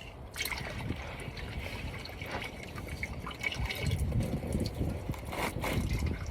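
Used engine oil trickling and dripping from the loosened oil filter of a 3.0 Duramax diesel, starting suddenly a moment in and running steadily, with small ticks of drops.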